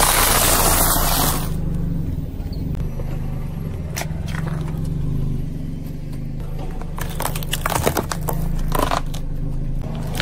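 A car engine idling while its tyre rolls over and crushes wafer ice cream cones and other objects: a loud crunching burst in the first second and a half, then scattered cracks and crackles.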